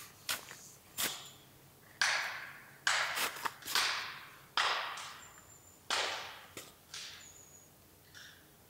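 Footsteps crunching in snow, about one step a second, each crunch sharp at the start and fading quickly.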